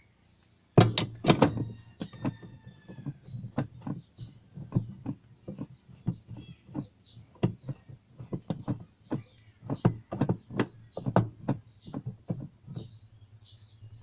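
Socket wrench clicking and knocking on the washing machine pulsator's 10 mm centre bolt as it is loosened. It is a run of sharp, irregular clicks, a few a second, starting about a second in, with brief metallic ringing among the first ones.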